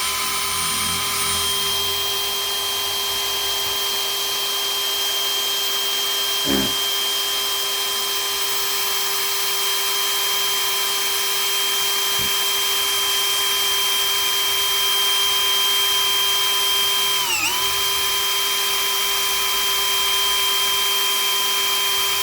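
Electric drill in non-hammer mode running at a steady speed with a Bosch multi construction bit boring into wood: a steady whine. It dips briefly about three-quarters of the way through, there is a single knock about a third of the way in, and the motor cuts off at the very end.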